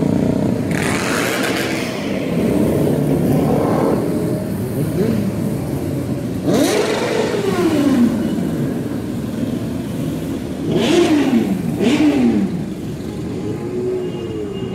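Motorcycles and scooters riding past one after another, engines revving as they pull by, their engine notes falling in pitch as each one passes.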